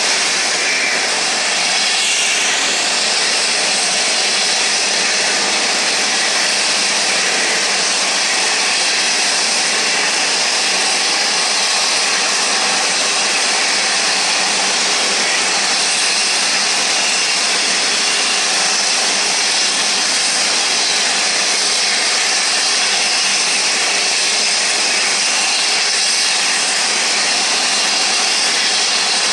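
Airbus A380-841 jet engines (Rolls-Royce Trent 970) running, a steady loud roar with a high whine that holds even throughout.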